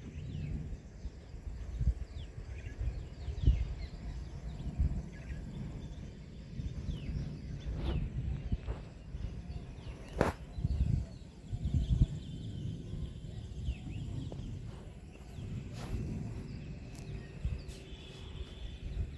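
Outdoor rural ambience: an uneven low rumble that swells and fades, with birds chirping now and then and a single sharp click about ten seconds in.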